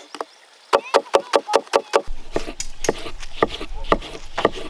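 Knife chopping rapidly on a wooden cutting board, about six strokes a second. About two seconds in the sound changes to slower, irregular chops over a low steady hum.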